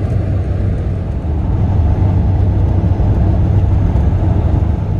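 Steady low rumble of a truck's engine and tyres at motorway speed, heard from inside the cab, growing slightly louder about a second and a half in.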